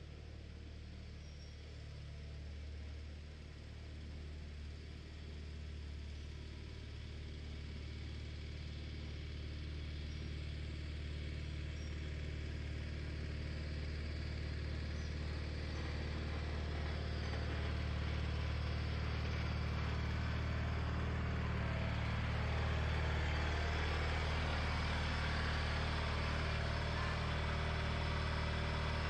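John Deere 420 garden tractor's two-cylinder Onan engine running steadily, getting louder as the tractor drives up close.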